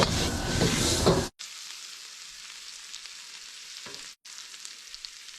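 Food frying in a pan: a loud, noisy stretch for about the first second cuts off suddenly. It gives way to a quieter, steady sizzling hiss with small crackles, broken by a brief gap just before the end.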